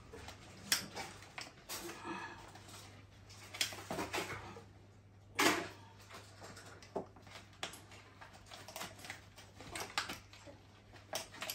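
Fabric rustling and scattered light clicks and knocks of plastic as a fabric seat is pushed and fitted into a plastic baby walker's frame, with one louder knock about five and a half seconds in.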